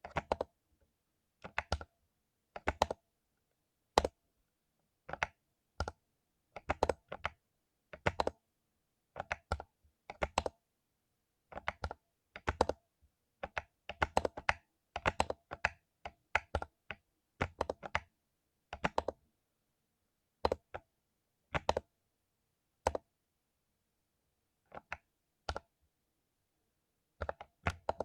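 Mechanical keyboard with lubed Cherry MX Silver linear switches being typed on: irregular runs of keystroke clicks and bottom-out clacks with short pauses between them, growing sparser toward the end.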